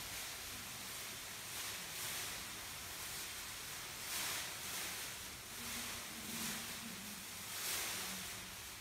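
Gold foil emergency survival blankets crinkling and rustling as they are handled and shaken, in uneven swells of hiss.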